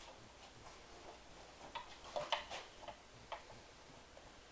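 Faint, scattered light clicks and taps from hands working the magneto plate and its kill-wire connectors on a 1959 Evinrude Fastwin outboard, the loudest few about two seconds in.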